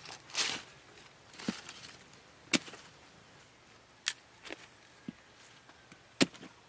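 Unripe green bananas being snapped off the bunch by hand and cut with a bolo knife: a string of about six sharp cracks and snaps, the loudest about two and a half seconds in and near the end.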